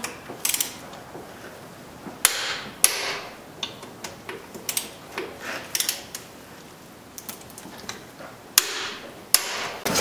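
Hand socket ratchet clicking in short, irregular strokes and steel tools clinking while the brake caliper bracket bolts are run in and tightened.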